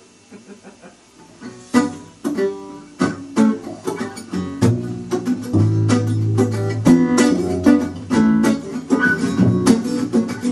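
Acoustic guitar, a few quiet notes and then strummed chords starting about two seconds in. Upright double bass joins with plucked low notes about halfway through.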